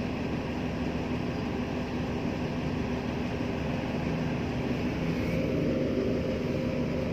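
A vehicle running steadily: a constant engine drone with a low hum and an even rolling rumble, growing a little louder about five seconds in.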